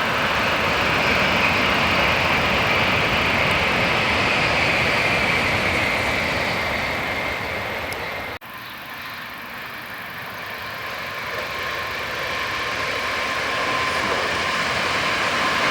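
Electric trains passing at speed: a loud, steady rush of wheel and rail noise with a thin high whine, fading away. About eight seconds in it breaks off abruptly, and another train's noise builds back up.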